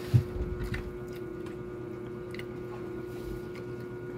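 A steady electrical hum, with one sharp thump just after the start and a few faint clicks.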